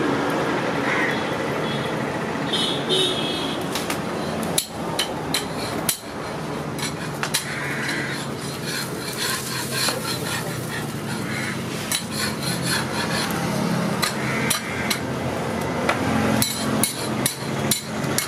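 Metal spatula scraping and clinking against a hot iron dosa griddle as dosas are lifted and flipped, with a quick run of clinks near the end. Under it runs a steady low hum.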